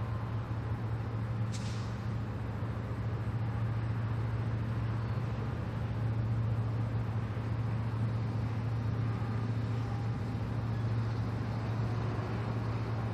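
Diesel engine of a Railpower genset switcher locomotive running with a steady low drone. A short high hiss comes about a second and a half in.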